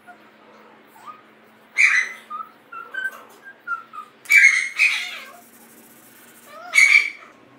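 An animal calling: three loud squawking calls, one near the start, one in the middle and one near the end, with soft short whistled chirps between the first two.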